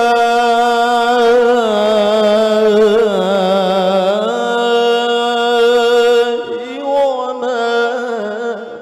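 Male Qur'an reciter chanting in the melodic mujawwad tilawah style into a handheld microphone. He holds one long ornamented note with a wavering pitch for about six seconds, breaks briefly, then starts a new phrase.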